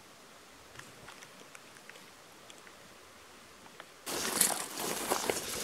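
Faint forest quiet with a few small ticks, then about four seconds in a sudden loud crunching and crackling of footsteps pushing through dry brush and twigs.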